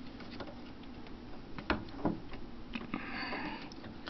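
A few light, irregular clicks and knocks of a desktop RAM module being pressed into its motherboard slot, which takes some force, with a brief scraping rub about three seconds in.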